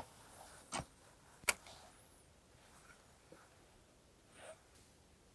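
A few faint clicks and rustles from handling a spinning rod and reel, with one sharp click about a second and a half in.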